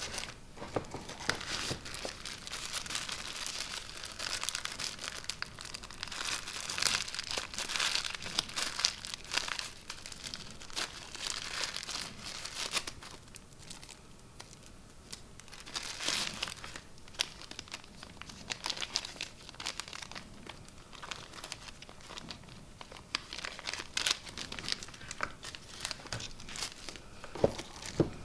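Clear plastic accessory bags crinkling and rustling as they are handled and unpacked. The crinkling comes in bursts, with quieter stretches midway.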